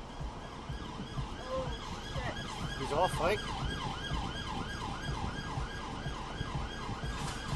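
Police car siren on a rapid up-and-down yelp, about three sweeps a second, over the low rumble of the car's own engine and tyres.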